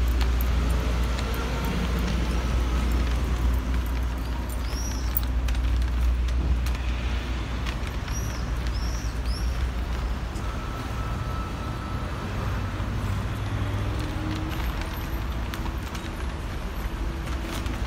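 City street ambience heard while walking along a sidewalk: a steady low traffic rumble, with scattered light ticks and a few short high chirps about five seconds in and again around eight to nine seconds.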